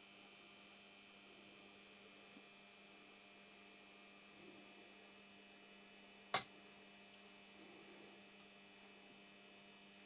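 Near silence: a faint steady electrical hum, with one sharp click about six seconds in.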